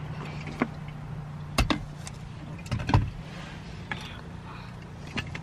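Low steady hum in a car cabin, with several sharp clicks and knocks scattered through it. The loudest knocks come about one and a half and three seconds in.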